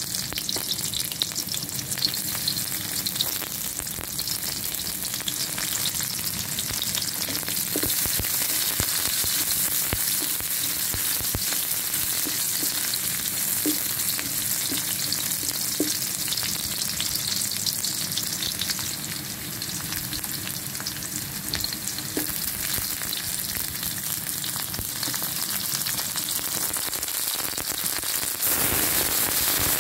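Sliced shallots, garlic, lemongrass and whole spices sizzling steadily in hot oil in a stainless steel wok, with a spatula scraping and clicking against the metal now and then. The sizzle grows louder near the end.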